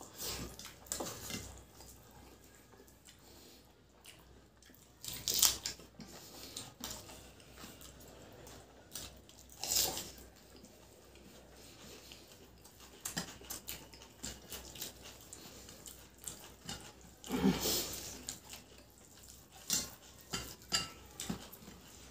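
Bare hands mixing rice and egg curry on stainless steel plates, fingers scraping and tapping the metal, with eating noises. The sounds come and go, with a few louder clinks about five, ten and seventeen seconds in.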